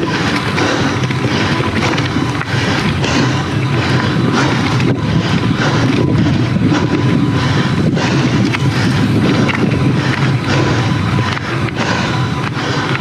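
A mountain bike rolling over a rough dirt trail: steady tyre noise with constant rattling and knocks from the bike.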